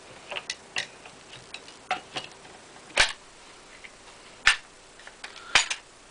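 Irregular sharp clicks and knocks of an SKS rifle's parts as the stock is fitted back onto the barrelled action, with three louder clacks about three, four and a half and five and a half seconds in.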